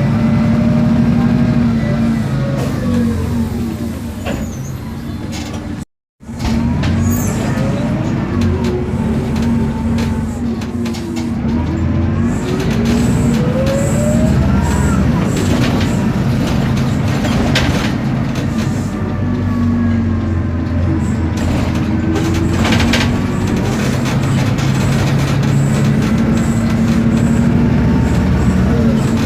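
Isobus City 1200 city bus under way: its MAN D0836 LOH diesel runs steadily under the whine of the ZF Ecomat automatic gearbox and differential, which rises and falls in pitch as the bus speeds up and slows. The sound drops out briefly about six seconds in.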